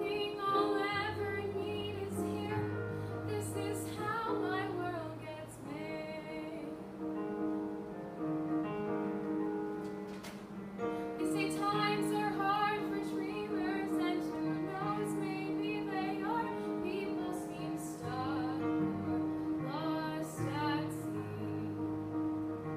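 A teenage girl singing a solo song with keyboard or piano accompaniment.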